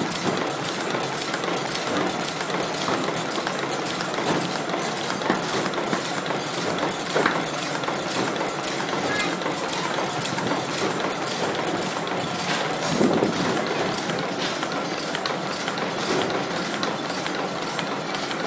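Galaxo PRO780LB folder-gluer running at speed, its belts feeding crash-lock-bottom cartons through: steady machine noise with a fast, even clicking.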